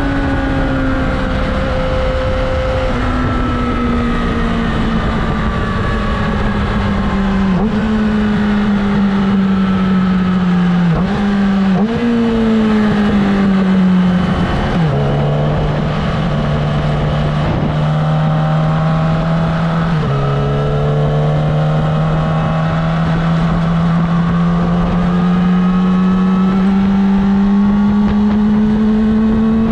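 Yamaha YZF-R6 inline-four engine running at cruising speed, its pitch sagging slowly, dropping suddenly about halfway through and again a few seconds later, then climbing steadily through the last third. Wind rush over the microphone runs underneath.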